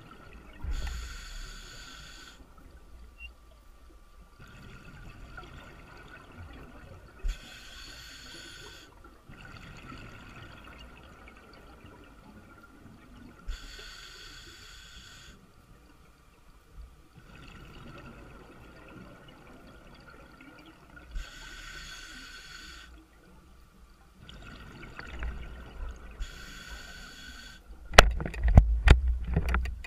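Scuba diver breathing through a regulator underwater: a soft hiss on each inhale and a louder rush of exhaust bubbles on each exhale, five breaths roughly six seconds apart. Near the end, a burst of sharp knocks and low rumble.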